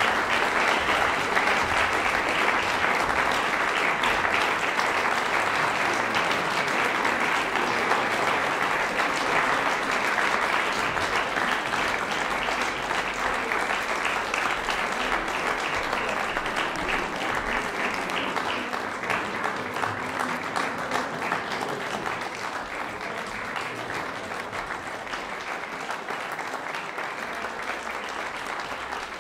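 Audience applauding steadily, gradually dying down in the second half.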